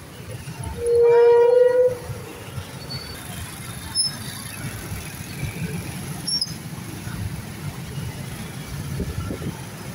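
A vehicle horn sounds once, loud and steady for about a second, over the low running of motorbike and scooter engines in slow, dense road traffic.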